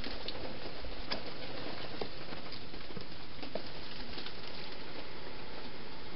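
Scattered light clicks and rustles of a hedgehog moving through dry grass and leaves, over a steady hiss.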